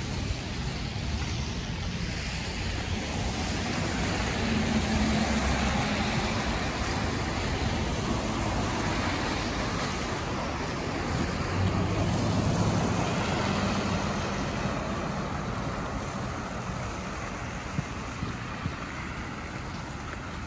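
Street traffic on a wet, slushy road: cars driving past with tyre hiss and low engine hum, swelling twice as cars go by, about a quarter of the way in and again past the middle.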